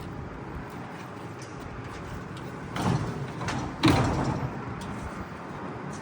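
A heavy vending machine being moved into a moving truck: a steady low rumble, then two heavy clunks about a second apart, the second the loudest.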